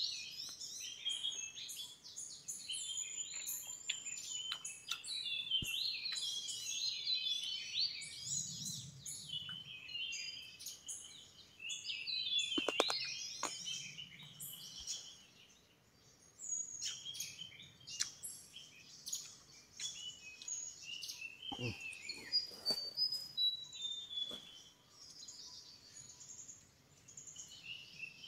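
Several forest birds singing and calling at once: a dense chorus of quick high chirps and short series of falling whistled notes.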